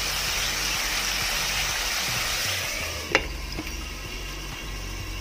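Snails in their shells sizzling in a frying pan. About three seconds in, a glass pan lid clicks down onto the pan, and the sizzling goes on quieter.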